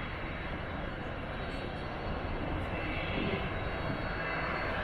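Jet airliner engines running, a steady rushing noise with a faint high whine on top, growing a little louder in the second half.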